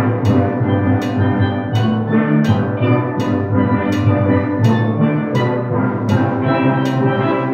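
Steel pan ensemble playing a melody over chords, with sharp struck accents recurring through the music.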